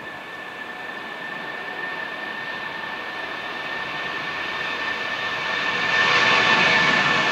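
Boeing 757-300 jet engines during the take-off roll: a steady high whine over a rushing noise that grows louder throughout, with a sharp rise about six seconds in.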